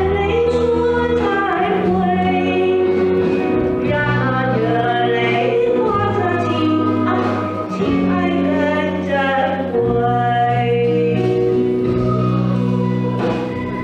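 Live concert performance of a slow Mandarin pop ballad: a woman singing over band accompaniment with sustained bass and keyboard notes, heard from the audience in a large hall.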